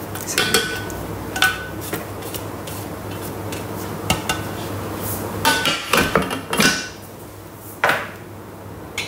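A plastic spatula scraping and knocking against the stainless steel Thermomix mixing bowl, in a string of sharp taps and clatters, with a close cluster of knocks a little past halfway, as chopped spring onion pieces are scraped out of the bowl.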